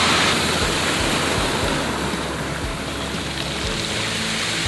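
Surf washing over a pebble and cobble beach: a steady hiss of breaking and draining water.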